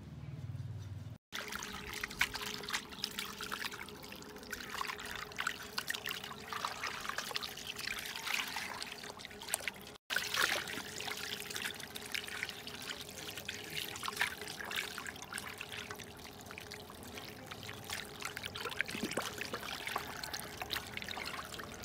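Water splashing and sloshing in a steel bowl as hands wash a raw duck carcass, with many small wet clicks and splashes. The sound cuts out abruptly twice, about a second in and about ten seconds in.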